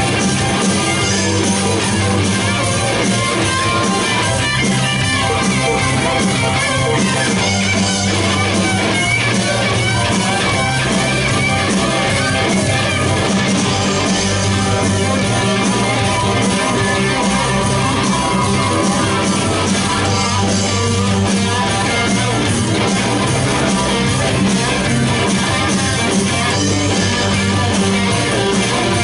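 Live rock band playing loudly and without a break, with electric guitar to the fore.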